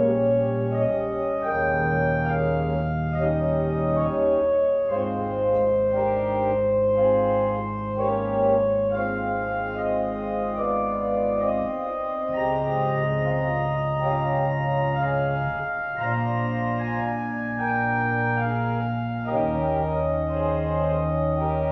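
Two-manual digital organ playing a slow hymn arrangement: sustained chords over held low bass notes, the bass changing every few seconds.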